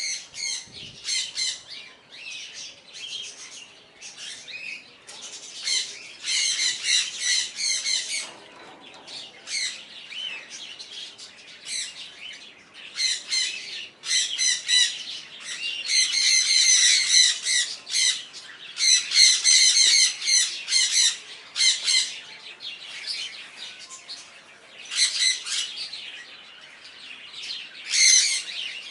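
Pet parrots squawking: harsh, shrill calls repeated in loud bouts, with softer chirps in the gaps.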